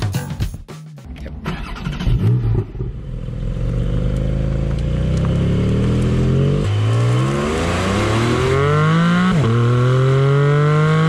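Porsche 718 Cayman GT4's 4.0-litre naturally aspirated flat-six accelerating hard, heard close at the exhaust. The engine note climbs steadily in each gear and drops sharply at two quick PDK upshifts.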